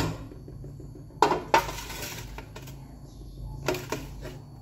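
A metal utensil knocking and scraping against a mixing bowl as thick brownie batter is worked out into a baking pan: a pair of sharp clinks about a second in followed by a rasping scrape, and two more knocks near the end.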